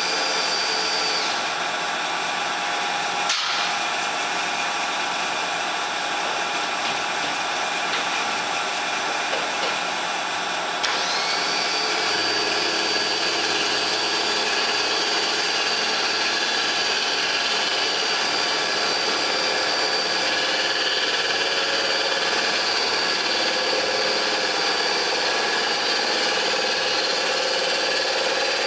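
Milling machine running steadily while facing an aluminium plate with a face mill. There is a sharp click about three seconds in, and a high whine joins about eleven seconds in and holds steady.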